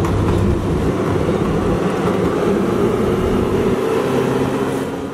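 Steady engine and road noise heard from inside a moving car: a low engine hum over tyre rumble.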